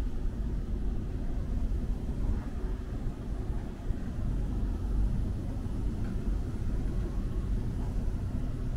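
Steady low rumble of city street ambience, with no distinct single event standing out.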